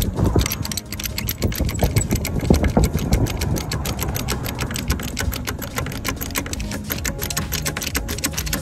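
Car jack being worked to lift the car until the rear wheel is off the ground: a rapid, even mechanical clicking.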